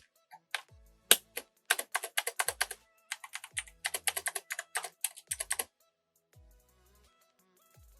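Typing on a computer keyboard fitted with Razer PBT keycaps: fast runs of key clicks for about five and a half seconds, then the keys fall silent. Quiet background music runs underneath.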